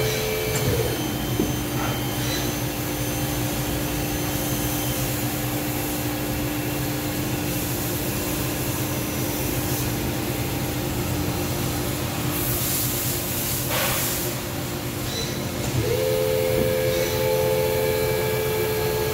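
EMAG VL-3 inverted CNC lathe running under power: a steady motor whine steps down in pitch about a second in and climbs back up near the end, over a constant hum and hiss. About two-thirds of the way through comes a short burst of hiss.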